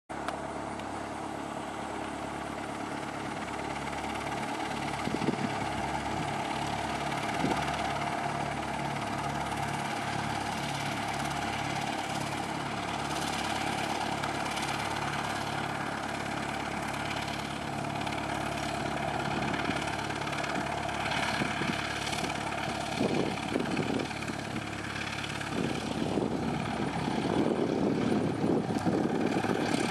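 Cessna 172's Lycoming piston engine, running uncowled, turning its propeller at low taxi power with a steady drone that grows louder over the last few seconds.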